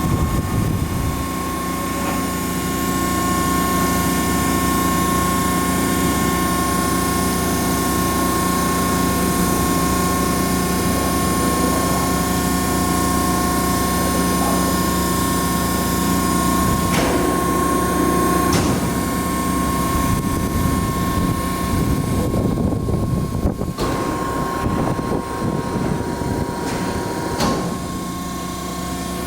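Hydraulic press brake running: the steady hum and whine of its 20-horsepower hydraulic pump motor. There are a couple of sharp knocks about two-thirds of the way through, and the sound turns more uneven after that.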